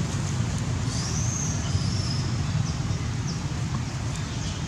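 Steady low outdoor rumble, with a thin high squeal gliding upward for about a second, starting about a second in.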